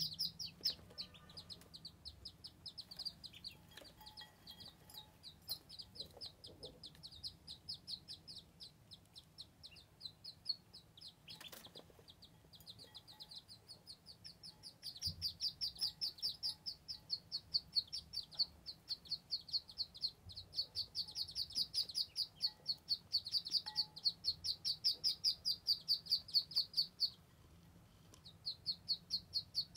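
Ducklings peeping: a rapid run of high chirps, several a second, softer at first and then louder and more continuous through the second half, breaking off briefly near the end. One short click sounds near the middle.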